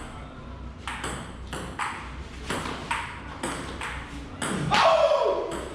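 Table tennis rally: the ball clicks sharply off paddles and table, roughly three hits a second. Near the end a person lets out a drawn-out exclamation that falls in pitch.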